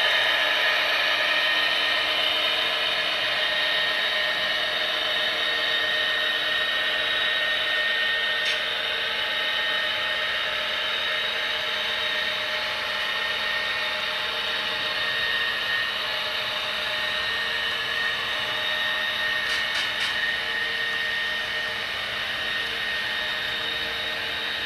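A small electric motor whining steadily, with a few held tones over a rushing noise, slowly getting a little quieter.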